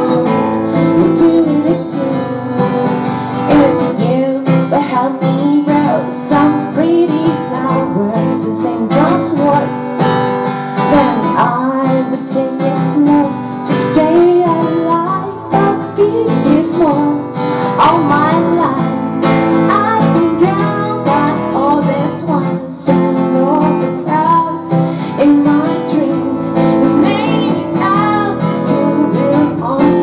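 A woman singing over a strummed acoustic guitar.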